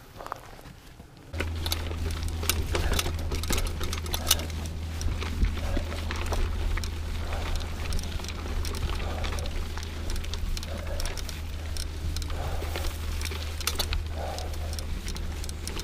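Mountain bike rolling along a rocky dirt singletrack: tyres on dirt and stones, with dense irregular clicks and rattles from the bike over the bumps and a steady low rumble underneath. It starts about a second and a half in, after a moment of near quiet.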